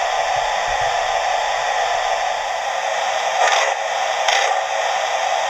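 Hornby TTS digital sound decoder in an OO-gauge Duke of Gloucester model playing steam locomotive sound through its small speaker: a steady hiss, with two louder puffs about three and a half and four and a quarter seconds in as the model moves off.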